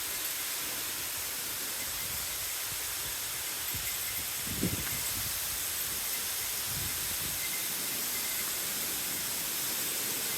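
Waterfall close by: the steady hiss of falling water and spray. There is one brief low thump about halfway through.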